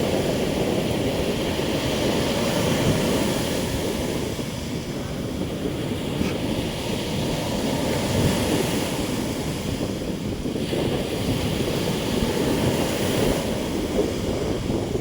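Big sea waves breaking and washing up on the shore in a steady surging rush, with wind buffeting the microphone.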